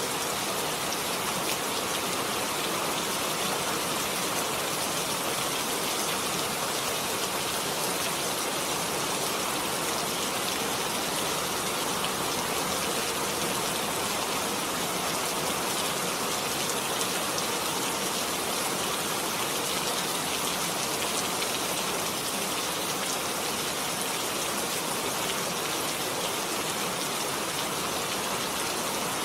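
Heavy rain falling steadily, a dense even hiss of many drops with no let-up.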